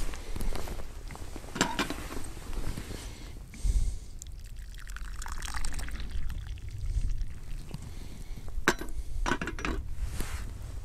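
Water poured into a pot for a few seconds from about four seconds in, the pitch rising as the pot fills. A few sharp knocks, one early and a cluster near the end.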